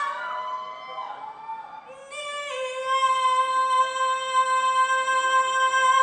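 A high, female-sounding voice singing a song: a quieter passage, then a single high note that slides up about two seconds in and is held steadily for several seconds.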